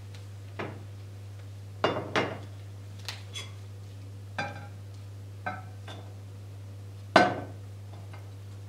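About eight separate clinks and knocks of a metal spoon and bowls as a salad is stirred in a glass mixing bowl and tipped into a ceramic serving bowl, the loudest about seven seconds in. A steady low hum runs underneath.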